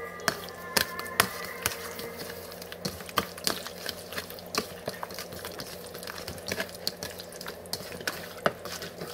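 A hand squishing and turning raw chicken pieces in a wet, spiced yogurt marinade in a ceramic bowl. Irregular squelches come with sharp clicks of fingers and meat against the bowl.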